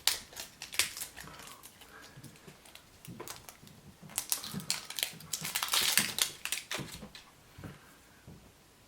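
Crinkling and clicking of a Chupa Chups surprise egg and its wrapper being handled and opened by hand: irregular sharp clicks, with a denser stretch of crinkling about two-thirds of the way in.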